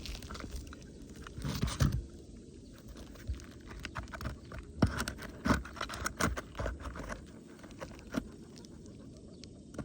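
Irregular scraping, crunching and light knocks as a roof shingle is lifted and a pitch gauge is set against it to measure how far the shingle is raised.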